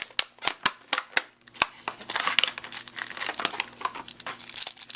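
A run of about seven sharp clicks and snaps over the first second and a half as the packaging is handled, then plastic wrapping crinkling and rustling as a small bag of flashlight accessories is opened.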